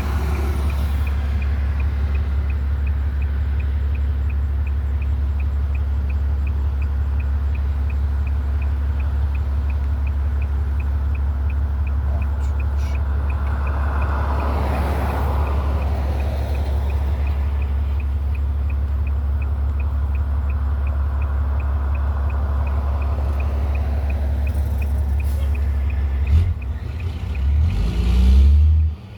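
Dump truck's diesel engine running at a steady idle with a faint, fast, regular ticking. Near the end it revs in a few loud, uneven surges.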